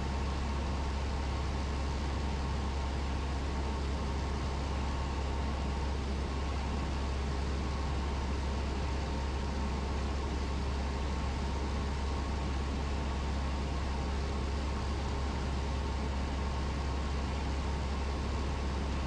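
Cessna 172's piston engine and propeller running steadily in flight, a constant low drone heard inside the cockpit.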